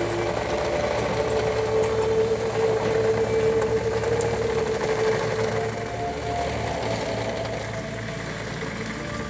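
Hydraulic excavator working: the diesel engine drones steadily under load beneath a sustained hydraulic whine that steps in pitch a few times.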